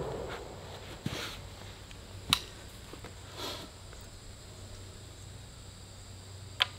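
The echo of a flintlock smoothbore's shot dies away, then a few sharp metallic clicks and a soft rustle as the gun is handled after firing.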